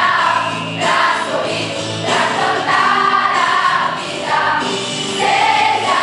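Youth choir of girls and boys singing a Christmas song together, voices holding notes for a second or so and moving from note to note.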